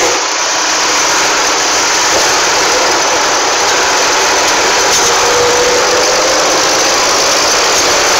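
Zetor 3011 tractor's two-cylinder diesel engine running steadily and loud as the tractor is driven, heard from inside the cab.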